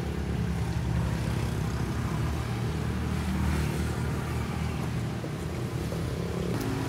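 Steady low rumble of motor-vehicle engines from street traffic, running without a break.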